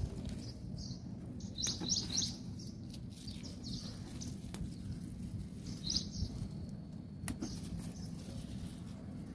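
Small birds chirping: short clusters of high chirps about two seconds in and again around six seconds, over a steady low background rumble.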